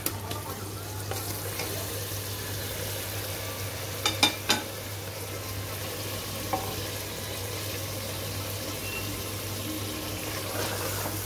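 Raw mutton pieces sizzling in hot fried masala in an aluminium pressure cooker while a wooden spatula stirs them, with a few sharp knocks of the spatula against the pot about four seconds in. A steady low hum runs underneath.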